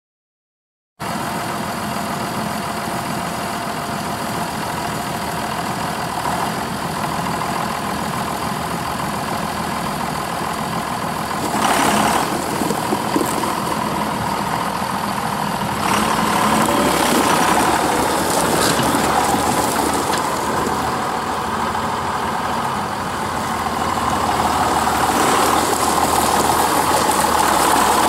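John Deere 7510 tractor's six-cylinder John Deere 6068 diesel running steadily as the tractor is driven slowly across gravel. It cuts in suddenly about a second in and gets a little louder near the end as the tractor comes closer.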